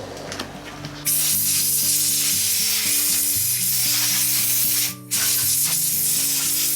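Loud steady hiss that starts about a second in, breaks off briefly near five seconds and stops just before the end, over background music with a melody.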